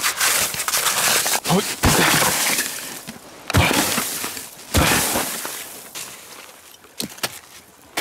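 Snow and ice crunching and breaking underfoot and by hand, with loud sudden crunches about two, three and a half and five seconds in, then quieter scraping and crackling.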